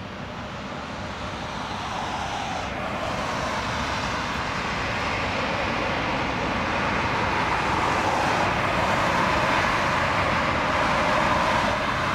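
Jet airliner on final approach: a steady rushing engine noise that grows gradually louder as the aircraft nears.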